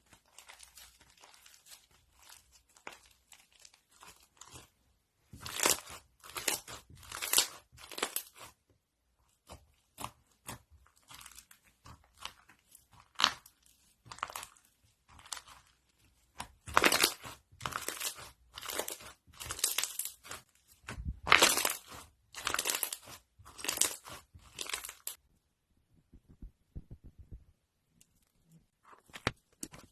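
Crunchy slime being squeezed and pressed by hand, crackling and popping in repeated clusters, with a quiet pause near the end.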